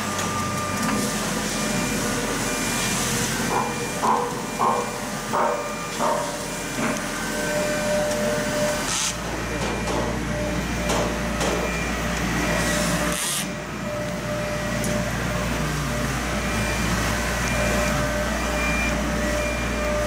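CNC door lock machine running amid workshop machinery: a steady mechanical hum with a thin whine, a few short knocks in the first seven seconds, and a deeper hum coming in about nine seconds in.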